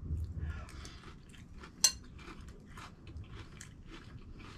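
Quiet eating sounds: chewing with small clicks of cutlery against a dish, and one sharper clink about two seconds in.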